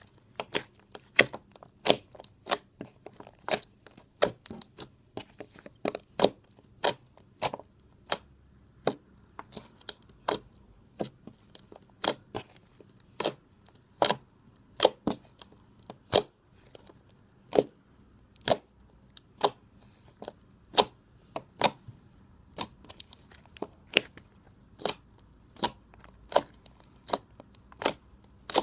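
Blue slime being poked with fingers, giving sharp sticky pops and clicks at an irregular pace of roughly one to two a second.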